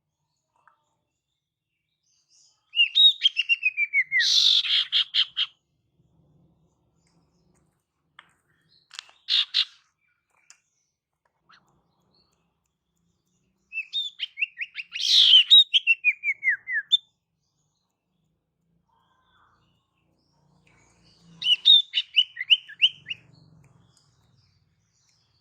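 Female common iora (sirtu or cipoh) calling, in a lure recording meant to attract males. It gives four phrases of quick chirping notes a few seconds apart. The two long phrases are strings of notes falling in pitch, and a short burst comes between them.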